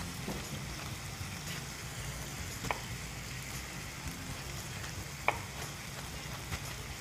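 Chicken sizzling as it fries in a pan, with a few sharp knocks of a chef's knife on a wooden chopping board as a tomato is cut into small chunks; the two clearest knocks come a little over a third of the way in and again about three quarters of the way in.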